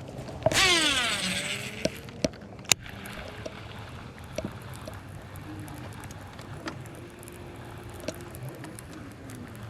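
A fishing reel's spool whirring as a lure is cast, its pitch falling as the spool slows, followed by a few sharp clicks; then a faint steady hum.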